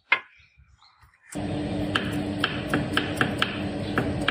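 A ceramic coffee mug clinks down on a glass tabletop. After about a second of quiet, a steady hum sets in with sharp light ticks coming several times a second.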